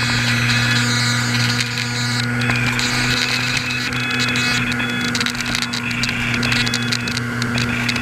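Electric motor and pusher propeller of a HobbyKing Swamp Dawg RC airboat running at a steady throttle, a constant hum with a hissing wash of air and water over it.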